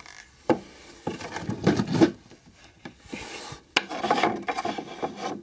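Breyer plastic model horse and toy wooden stable being handled: irregular rubbing and scraping against the wood, with a couple of sharp knocks.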